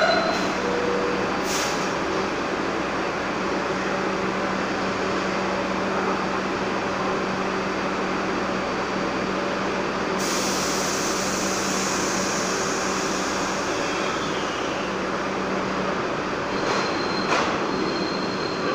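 New York City Subway train standing in the station, its equipment giving a steady hum with a constant low tone. About ten seconds in, a loud hiss of air starts and runs for several seconds before fading.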